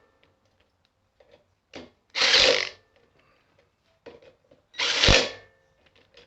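A hand-worked mechanism or tool making three short bursts of mechanical noise, each under a second and about two and a half seconds apart. A faint click comes just before each burst.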